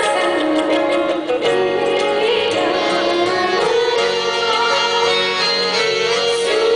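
Live stage band playing Indian film-style song music through a PA: a wavering melody line over keyboard-type chords, with light percussion ticks near the start.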